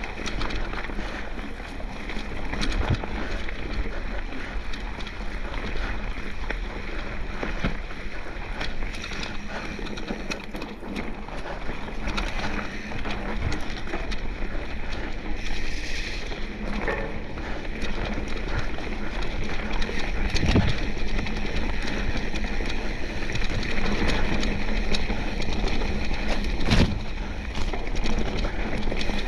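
Mountain bike rolling down a wet, muddy dirt trail: steady tyre and frame rattle, with a few sharp knocks as the wheels hit bumps and roots.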